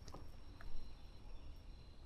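Faint woodland ambience: a steady high-pitched insect drone with a couple of brief, faint bird chirps.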